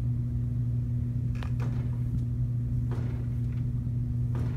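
Steady low electrical hum of room tone, one even droning pitch with an overtone, with a few faint soft clicks or rustles over it.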